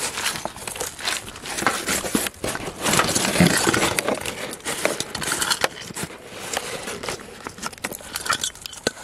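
Rustling and crackling from handling dry fishing-bait ingredients: a woven bag being rummaged and dry bait powder against a steel basin. There is a louder stretch of rustling about three seconds in.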